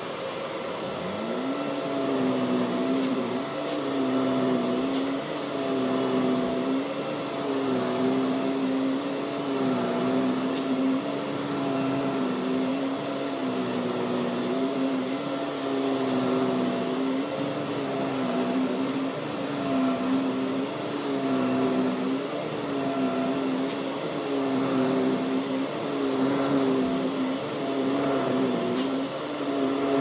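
Hoover WindTunnel Air Lift upright vacuum cleaner running on carpet while pushed back and forth: a steady motor whine, with a low hum that rises in pitch about a second in and then dips and recovers roughly every two seconds, stroke by stroke.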